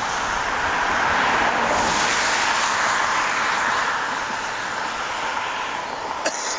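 Road traffic: a vehicle passing, a steady rush of tyre and road noise that swells in the first couple of seconds and slowly fades. A sharp click near the end.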